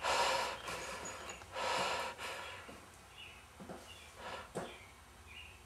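A person breathing heavily through the mouth: two loud breaths in the first two seconds, then quieter breathing with a few faint clicks.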